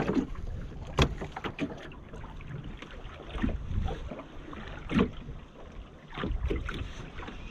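A small open boat on the sea: water moving against the hull, with scattered knocks of gear against the boat, two sharper ones about a second in and about five seconds in.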